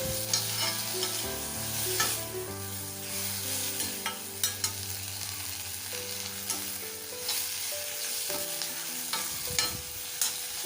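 Thoothuvalai and mudakathan leaves sautéing in oil in a kadai: a steady sizzle, with the spatula scraping and knocking against the pan now and then as they are stirred.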